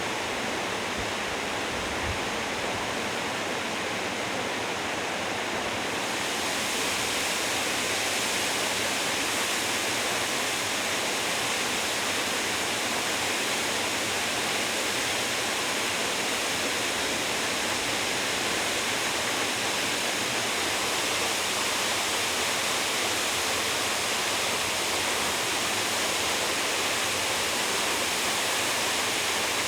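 Steady rush of water from a plunge waterfall with a drop of over twenty metres. About six seconds in, the sound turns a little brighter and hissier.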